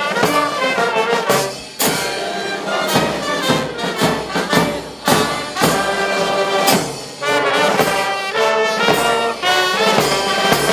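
Band music with a loud horn melody over regular drum beats.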